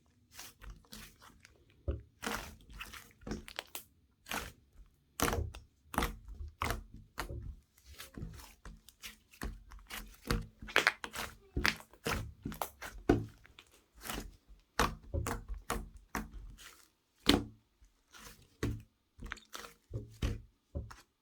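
Close-up crunching and crinkling: an irregular run of sharp cracks, several a second, some much louder than others.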